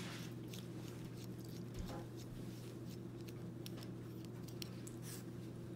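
Faint light ticks and scratching of a stainless steel Karve Christopher Bradley safety razor's handle being unscrewed from its head, metal threads turning under the fingers. A steady low hum runs underneath.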